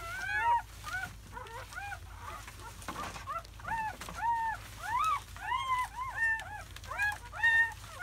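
Newborn German Shepherd puppies crying: a chorus of short, high squeaks that rise and fall in pitch, several overlapping each second.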